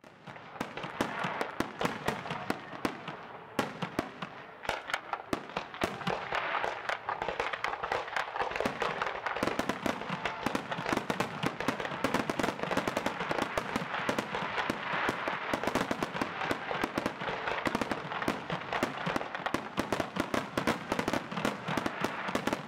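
Aerial fireworks display going off as a continuous barrage: many overlapping bangs and crackling bursts every second.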